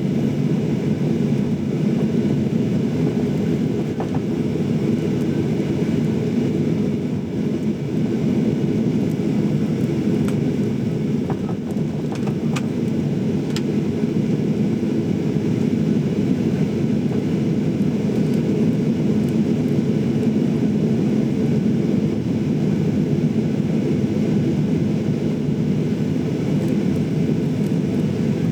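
Steady cabin noise inside a jet airliner on the ground, with the engines at low power and the air conditioning running: an even rumble and hum with a few faint clicks in the middle.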